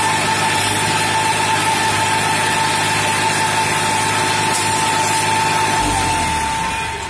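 New Holland 3230 tractor's diesel engine running while pulling a loaded trailer up a slope, with a steady high whine over it; the low engine note deepens and strengthens about six seconds in.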